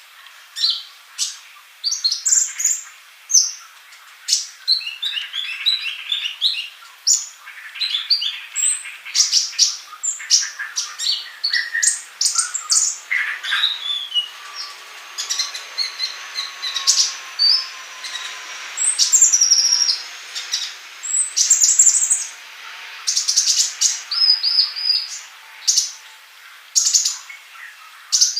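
Male kolibri ninja sunbird singing vigorously: a continuous rapid string of high, thin chirps, chips and short trills.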